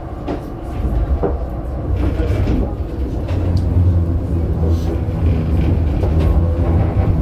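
A 1981 LHB GT6 tram with a B4 trailer running, heard from on board: a steady low rumble and hum from the running gear and motors that grows louder about three seconds in.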